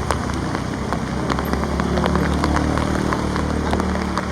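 Rain falling steadily, with many sharp drops ticking on nearby surfaces over an even hiss, and a low steady hum beneath.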